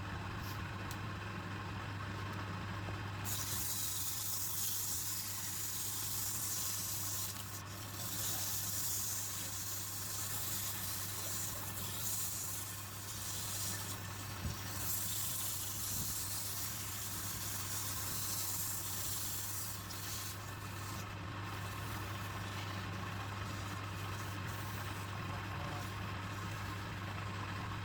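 Wood lathe running with a steady motor hum, and from about three seconds in a hissing scrape of a tool cutting into the spinning wood that rises and falls.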